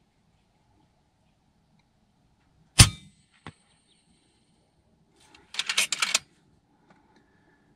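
A moderated FX Impact MK2 PCP air rifle fires once: a sharp report with a short metallic ring. A faint knock follows under a second later, and about three seconds after the shot comes a quick run of clicks.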